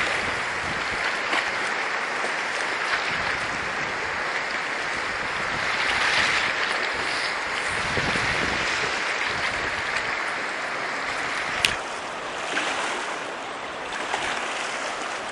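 Fast river current rushing steadily past the bank, with a single sharp click a little past the middle.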